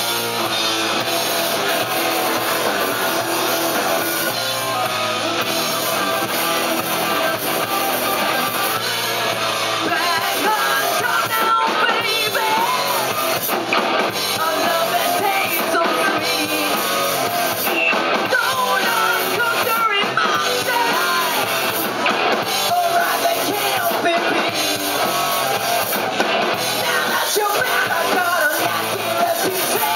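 Live rock band playing loud: electric guitars through Marshall amplifiers, bass and drums, with a singer coming in over the band about ten seconds in.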